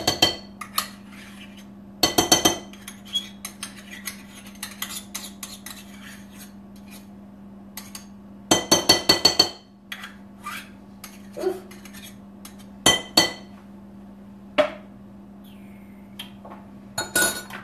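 Measuring cup and utensil knocking against a mixing bowl while emptying sour cream into it. The knocks come in four bursts of quick clinks, the longest about 9 s in.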